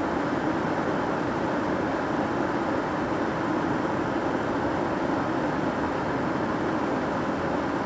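Kettle heating water, giving a steady, even rush of churning water with no whistle.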